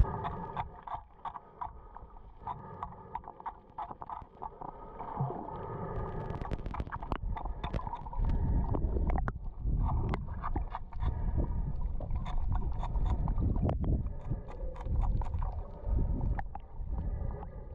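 Hull scraping below the waterline: a scraper knocking and scraping at barnacles and growth on a yacht's hull, heard muffled, with many sharp, irregular clicks and knocks. It grows louder from about eight seconds in.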